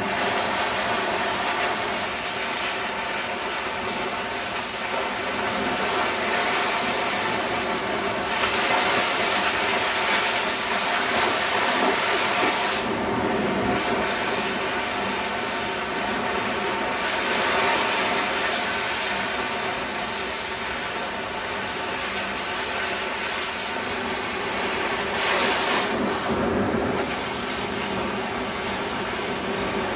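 Angle grinder grinding a steel plate edge to a bevel: a steady motor whine over harsh hiss, with the grinding growing heavier and lighter a few times as the disc is worked along the edge.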